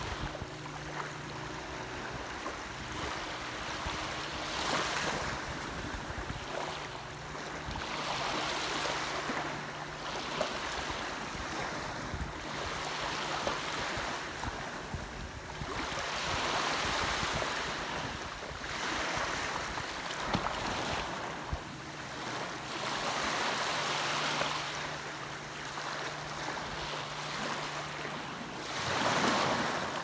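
Small waves breaking and washing up a sandy beach, the surf swelling and easing every few seconds, loudest near the end.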